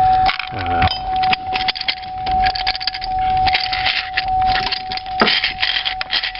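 Metal parts of a seatbelt retractor clicking and rattling as the stuck mechanism is worked loose, over a steady high electronic tone that pulses faintly at a regular pace.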